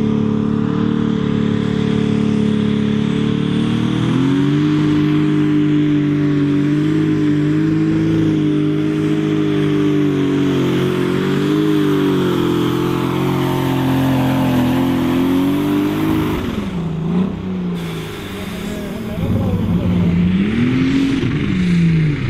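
Ursus Limited Super Stock pulling tractor's engine at full throttle under load while pulling the sled. Its pitch rises a few seconds in and wavers, then drops away sharply about sixteen seconds in as the throttle is cut. Shorter revs rise and fall near the end.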